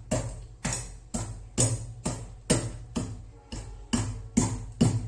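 Ginger being pounded with a pestle to crush it finely for its juice: sharp knocks at a steady pace, about two a second.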